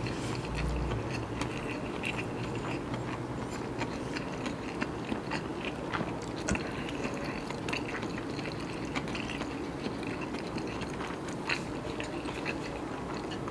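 Close-miked chewing of a mouthful of nasi kandar (rice with curry), with soft wet mouth clicks and smacks scattered irregularly throughout.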